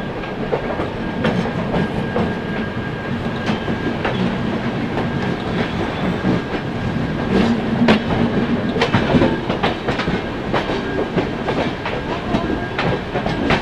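Indian Railways passenger train running at speed, a steady rumble of wheels on track with sharp irregular clicks as the wheels pass over rail joints, the clicks coming thicker in the second half.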